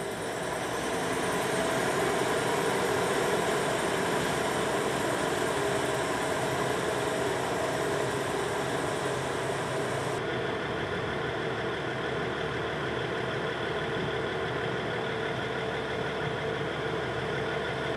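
Portuguese CP diesel multiple unit's engine running with a steady drone of several tones as the train pulls out of the station and moves off along the track. About ten seconds in the sound turns duller.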